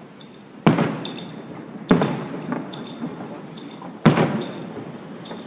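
Three firework bangs, each a sharp crack with a fading echo, the first about a second in, the next just over a second later and the last about two seconds after that.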